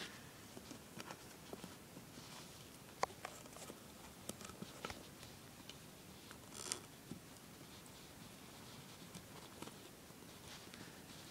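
Faint rustling and scattered light clicks of fingers working stretchy loops over the pegs of a potholder loom. There is one sharper click about three seconds in and a brief rustle a little past halfway.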